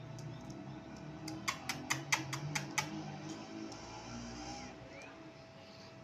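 A quick run of about seven sharp taps in just over a second, a ringneck parakeet tapping on the hard floor, over faint background music.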